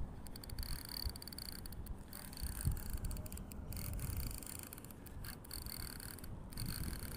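Fishing reel whirring and clicking as line is worked against a large fish on the line, with low rumbling handling noise on the microphone.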